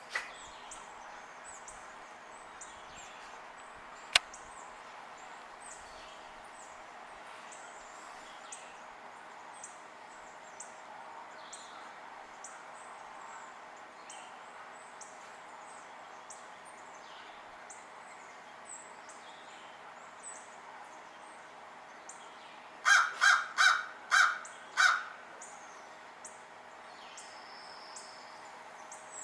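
Wild birds at feed: short, high chirps go on throughout, and a sharp click comes about four seconds in. Near the end a larger bird gives five loud calls in quick succession.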